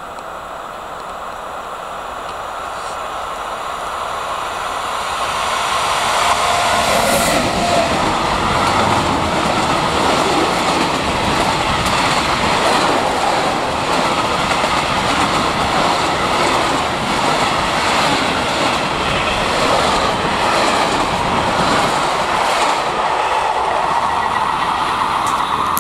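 Long freight train of high-sided open wagons approaching and passing close by: a rumble that grows over the first six seconds, then a steady loud rumble of wheels on rail with a rhythmic clatter from the wagons' wheels.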